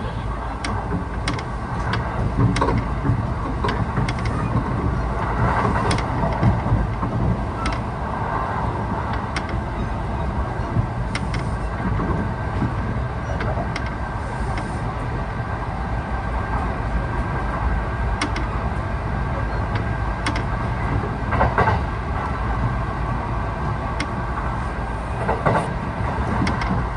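Kintetsu 1620 series electric train running at speed, heard from inside the passenger car: a steady rumble of wheels and running gear, with scattered sharp clicks of the wheels crossing rail joints.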